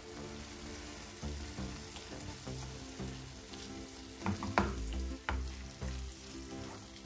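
Food sizzling in a frying pan, with a few sharp knocks of a utensil against the pan about four seconds in and once more a second later. Background music plays softly underneath.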